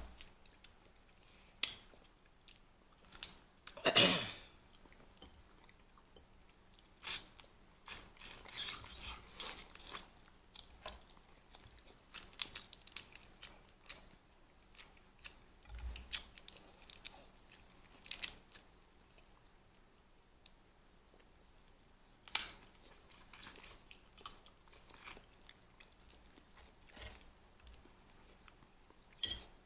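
Close-miked eating of a seafood boil: chewing and biting, with scattered short crunches and clicks at irregular intervals.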